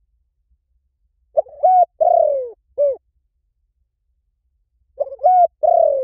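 Spotted dove cooing: a phrase of about four low coos about a second and a half in, and the next phrase starting near the end.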